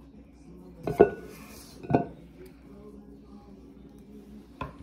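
A metal utensil clanking against a stainless steel pot while scooping cookie dough: two clanks about a second apart, each ringing briefly, then a lighter tap near the end.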